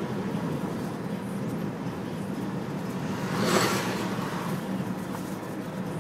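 Steady road and engine noise inside a moving car's cabin, with one brief louder whoosh a little past halfway.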